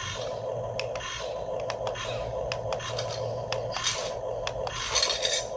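Huina RC excavator working: a steady electric motor whine, dipping briefly at regular intervals, under scraping and clicking from the bucket and its load, with louder scraping bursts about four and five seconds in.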